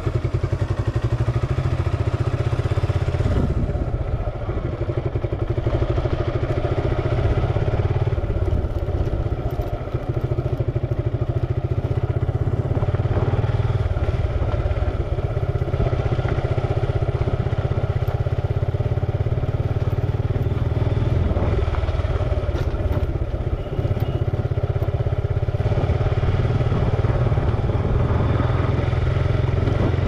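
Suzuki Gixxer motorcycle's single-cylinder engine running steadily at low road speed, unmuffled by any music or voice.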